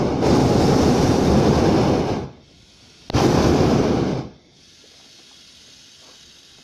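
Hot-air balloon's propane burner firing in two blasts, an even roar that starts and cuts off abruptly: the first runs to about two seconds in, the second lasts about a second before the sound drops to a faint background.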